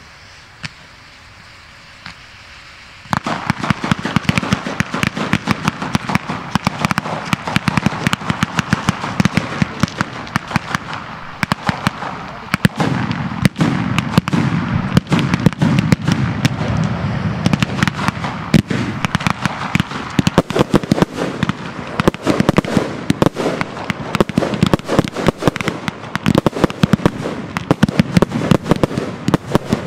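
Fireworks going off: after a few scattered pops, a dense, rapid barrage of bangs and crackles starts suddenly about three seconds in and keeps going without a break.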